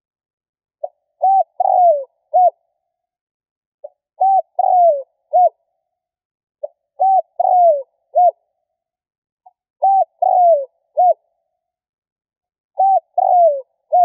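Spotted dove cooing its song: five phrases about three seconds apart. Each is a soft short note, then a coo, a longer falling coo and a short closing coo.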